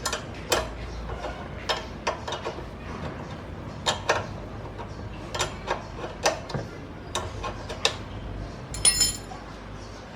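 Irregular metallic clicks and taps of hand tools working on a car's underbody suspension fittings, with a short ringing metal clink near the end.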